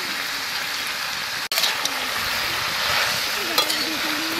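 Chicken, potato and cauliflower curry sizzling steadily in a large aluminium pan. Near the end a metal spatula clinks and scrapes as the pan is stirred.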